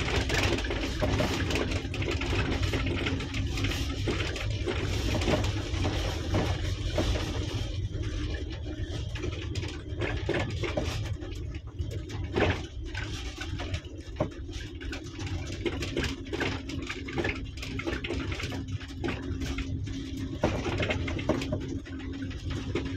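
Car driving on a gravel dirt track, heard from inside the cabin: a steady low engine and tyre rumble with a constant hum, and frequent small clicks and knocks from the rough road.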